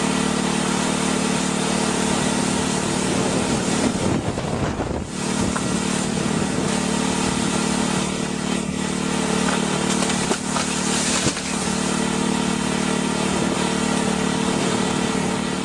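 A large machine's engine running steadily at a constant speed, with a rushing, grinding noise over it.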